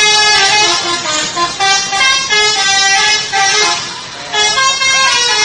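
Indonesian bus 'telolet' horn, a set of musical horns playing a quick tune of stepped notes. It drops away briefly about four seconds in, then starts again.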